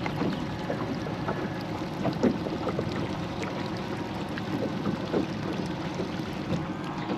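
Small boat rocking on choppy river water: water lapping and slapping against the hull in a steady wash of small, irregular splashes.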